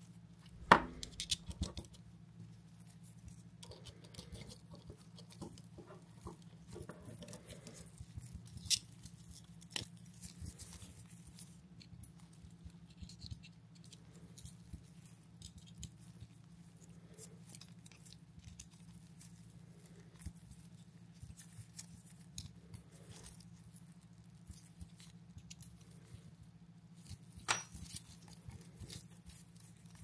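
Small clicks and taps of a SRAM Eagle GX rear derailleur's plastic cage, pulley wheel and a hex key being handled and fitted together, with a sharper click about a second in and another near the end, over a steady low hum.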